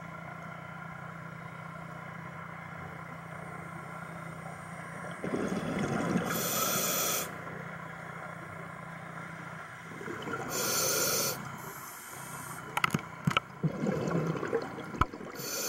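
Scuba diver breathing through a regulator underwater: three loud inhalation hisses about four seconds apart, alternating with the gurgle of exhaled bubbles, a few sharp clicks among them, over a steady low hum.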